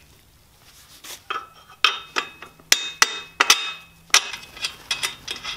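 Red metal frame tubes of a drift trike knocking and clinking together as they are handled and fitted. It is a string of about a dozen sharp metallic knocks starting about a second in, several of them ringing briefly.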